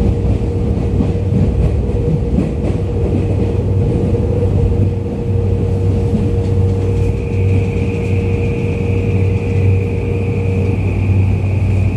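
Tokyu 2020 series electric train running through a subway tunnel, heard from inside the passenger car: a loud, steady rumble of wheels and running gear. A steady high tone joins about seven seconds in.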